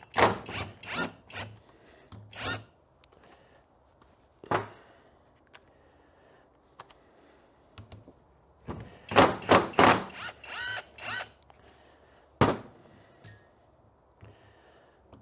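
Cordless power driver with a socket running in short bursts as it undoes the 14 mm and 12 mm bolts holding a Honda GL1100 front brake caliper to its bracket. A cluster of quick bursts comes at the start and another around the middle, with single knocks between and a bright metal clink near the end.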